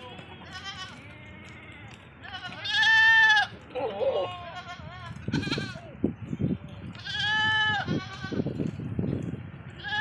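Sirohi goats bleating: several calls from the herd, the two loudest, each about a second long, coming about three seconds in and about seven and a half seconds in.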